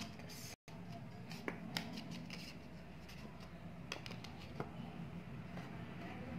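A few light clicks and taps of cardstock being handled on a cutting mat, over a steady low hum, with a brief dropout about half a second in.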